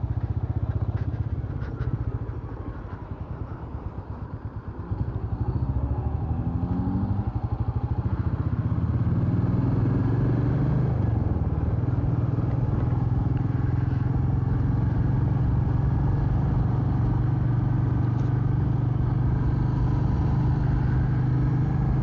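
Royal Enfield Meteor 350's single-cylinder engine running while the bike is ridden. The engine drops off a couple of seconds in, picks up again with a rising note around six seconds in as the bike accelerates, then holds steady.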